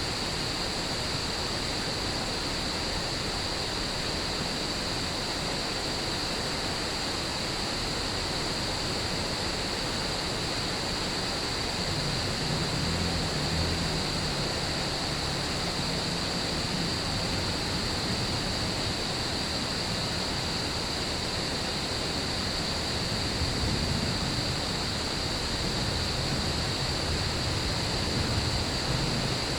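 Steady hiss of rain, with a constant high-pitched trilling of crickets over it. Low rumbles of distant thunder swell up about twelve seconds in and again near the end.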